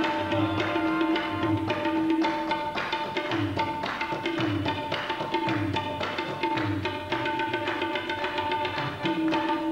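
Live tabla and harmonium music. The tabla plays a steady, dense rhythm, and the low drum's strokes bend down in pitch. The harmonium holds sustained notes underneath.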